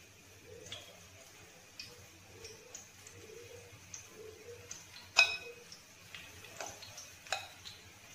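A spoon clinking lightly and irregularly against the batter bowl and the karahi as pakora batter is dropped into the frying oil, with one louder ringing clink about five seconds in.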